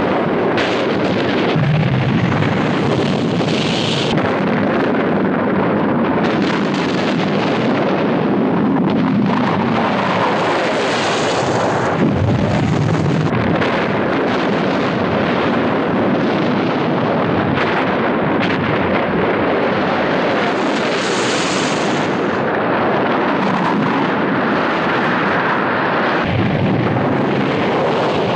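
Film sound effects of a volcanic eruption: a loud, unbroken din of explosions and blasts that keeps the same level throughout.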